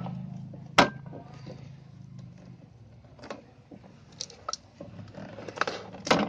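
Plastic clicks and knocks from a toy rocking horse's wheel lock being released and its plastic parts handled: a sharp click about a second in, scattered lighter knocks, and another sharp click near the end.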